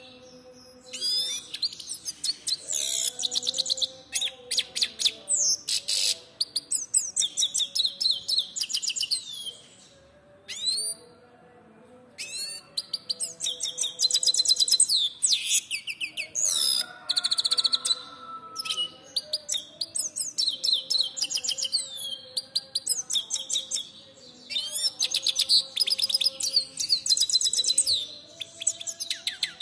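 Caged goldfinch singing: long phrases of fast, high twittering trills and buzzy notes, broken by a few brief pauses.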